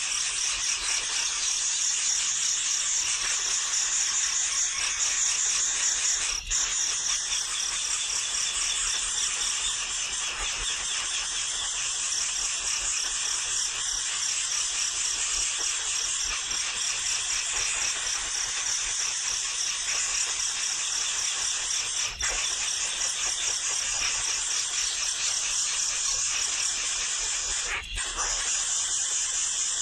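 Baby birds in the nest calling noisily, a continuous high-pitched chatter over a steady insect trill, broken by brief drop-outs about six seconds in, about two-thirds of the way through, and near the end.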